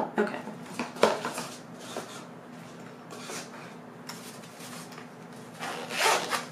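Unboxing handling on a table: a knife box and a black nylon knife case are set down and moved. There are a couple of sharp knocks in the first second or so, light rustling, and a louder rasping noise near the end.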